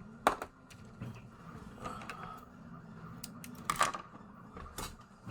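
3D printer's stepper motors running, a faint squeaking tone that rises and falls in arcs. Several sharp clicks and taps stand out over it, the loudest about a third of a second in and again near four seconds in.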